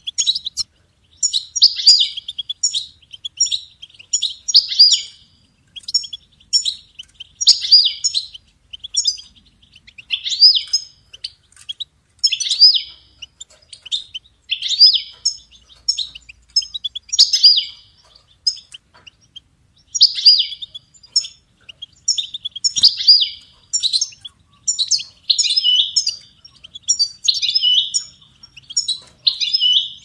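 European goldfinch singing: fast, high-pitched twittering phrases with trilled notes, a louder phrase coming about every two to three seconds with quicker chirps between.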